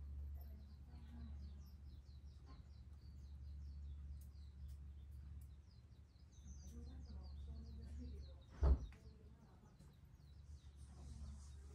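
Small birds chirping in quick, repeated short notes throughout, over a steady low hum. About two-thirds of the way through comes a single loud thump close to the microphone, the loudest sound.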